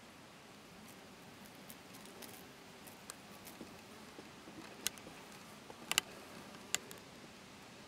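Faint steady hiss with a few sharp, light clicks: one about five seconds in, a close pair about a second later, and another shortly after.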